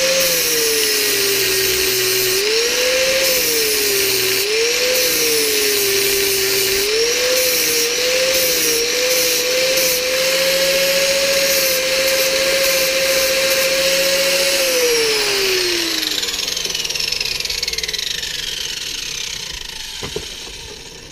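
Angle grinder with a flap disc running, its pitch dropping several times as it is pressed into the work and rising again when eased off, then running steadily unloaded. About fifteen seconds in it is switched off and winds down with a long falling whine over about five seconds.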